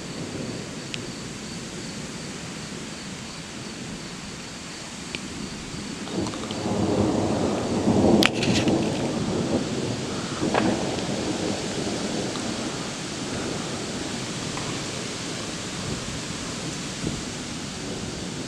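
Thunder rumbling: a rolling rumble builds about six seconds in, is loudest around eight seconds and dies away by about eleven seconds, over a steady hiss and a high, evenly pulsed insect trill.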